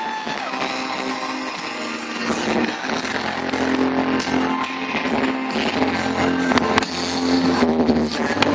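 Rock-style music with guitar accompanying a fireworks display, with a few sharp firework bangs over it.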